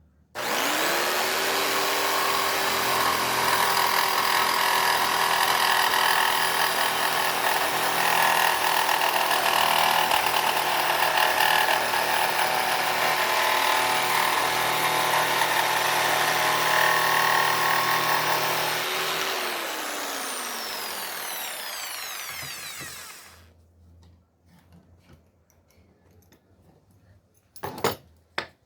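Electric woodworking power tool switched on, its motor spinning up and then running steadily, with a rougher, louder stretch in the middle as it works the wood. It is switched off about 19 seconds in and spins down over several seconds, its pitch falling, followed by a couple of sharp knocks near the end.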